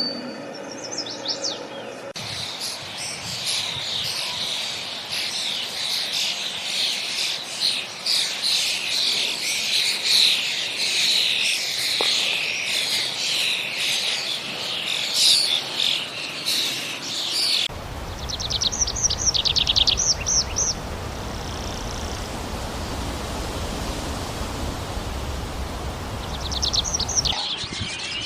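Dense chorus of wild birds calling and chirping, mixed with insect chirping. The chorus gives way suddenly to a quieter, rushing background with a low rumble, over which a fast rattling bird trill sounds twice. A short steady pitched sound comes in the first two seconds, before the chorus cuts in.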